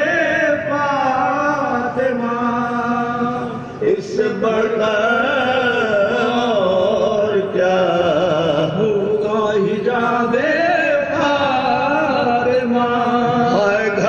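Men's voices chanting soz, an Urdu elegy for the family of the Prophet, in long, wavering held notes with slow melodic turns. There is a brief break for breath about four seconds in.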